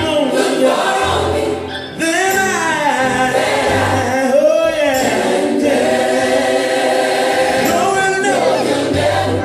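Gospel music: a choir singing over a bass-heavy backing, with a brief dip in the music just before two seconds in.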